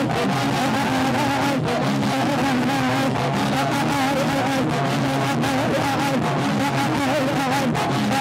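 A church congregation singing praise loudly together, a dense steady wash of many voices with music under it.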